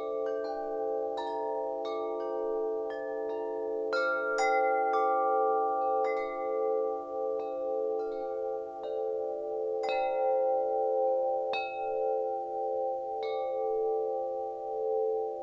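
Wind chimes ringing: irregular strikes, a dozen or more, each leaving clear notes that ring on. Beneath them sits a bed of long-held low tones that throb slowly.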